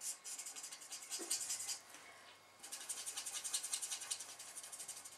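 Arteza EverBlend alcohol marker tip rubbing on white cardstock in quick back-and-forth strokes as pink ink is blended in: a soft, rapid scratching, with a short pause about two seconds in.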